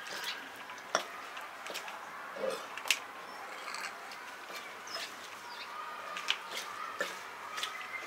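Cormorant working a large fish down its throat: scattered sharp clicks and taps as bill and fish knock together, with a short low sound about two and a half seconds in.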